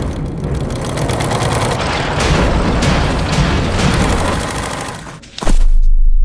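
Industrial sewing machine rattling at high speed, its fast even stitching clicks buried in a dense, swelling film sound-design bed. About five and a half seconds in, a sudden loud, deep boom hits and holds.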